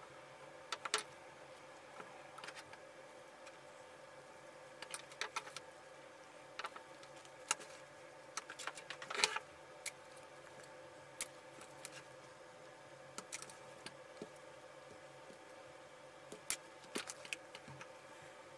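Scattered small clicks, taps and light scraping of hands and pliers working on an electric drill's power cord, cutting and stripping it and handling its small plastic fittings, over a faint steady hum. The sharpest click comes about nine seconds in.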